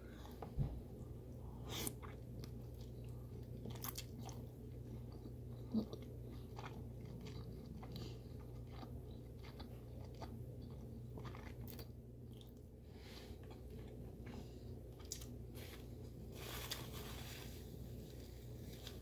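Close-up eating sounds: chewing, lip smacking and soft wet clicks as saucy seafood boil meat is eaten by hand, over a low steady hum. Near the end a short rustle as a paper napkin wipes the mouth.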